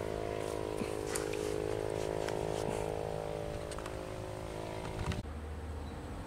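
A small engine running steadily at one unchanging pitch, with a few faint clicks. It cuts off suddenly about five seconds in, leaving a low hum.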